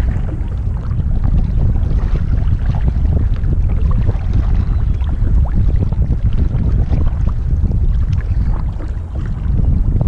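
Wind buffeting the microphone in a heavy low rumble, with many small splashes of river water around a kayak.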